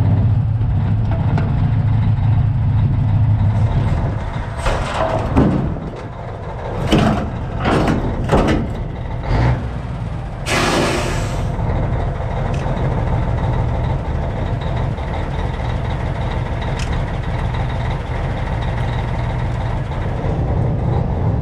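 Diesel semi-truck engine running, with a strong low hum for the first few seconds. From about four seconds in come a series of short hisses and clunks, then a longer hiss of compressed air a little before the middle, as the tractor is hooked up to a trailer and its air system is connected.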